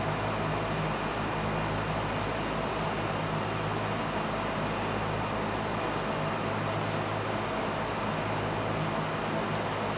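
Steady background hiss with a low, even hum underneath, unchanging throughout and with no bangs.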